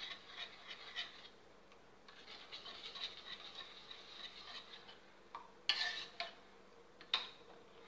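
Metal spoon stirring a liquid milk mixture in a bowl, scraping lightly against the bowl's side, busiest in the first second and softer afterwards. Two sharp clicks about a second and a half apart near the end.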